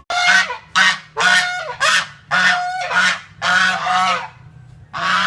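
Goose honking: about eight short, harsh honks in a quick irregular series, with a brief pause near the end before the honking starts again.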